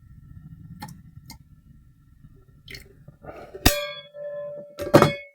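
Metal kitchenware clanging: a sharp metallic clang about three and a half seconds in that rings on for a moment, then another knock near the end, as water and rice go into a saucepan.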